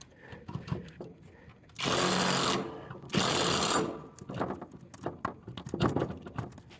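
A cordless power tool, likely an impact gun, runs in two short bursts about a second apart, driving the mower blade's bolt tight. Small clicks and handling knocks come before and after.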